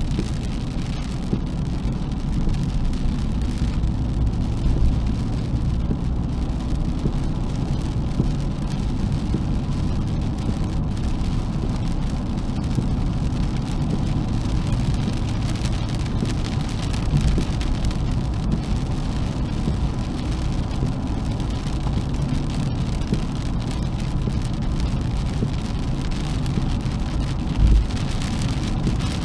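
Steady in-cabin drive noise of a Nissan 370Z Nismo's V6 on a wet road: low tyre and road rumble with engine drone, and a light hiss of rain and spray. A brief low thump near the end.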